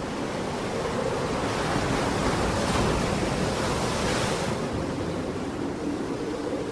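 Sea waves on the shore: a wave swells and breaks about a second and a half in, its hiss dying away after about four and a half seconds.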